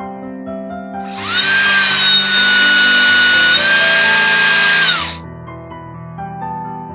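Dong Cheng cordless impact driver running free with no load. Its motor whine spins up about a second in, holds steady for about four seconds with a slight step up in pitch partway through, then winds down. Background music plays throughout.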